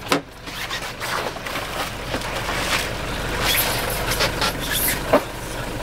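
Water splashing and churning irregularly against the side of a fishing boat, with a sharp knock just at the start, over a low steady rumble.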